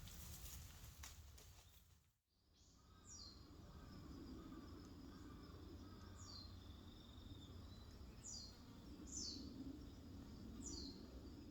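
Faint woodland ambience: a bird gives a short, high call that falls in pitch, about five times at intervals of a second or more, over a low rumble. Before a cut about two seconds in there is light rustling with small clicks.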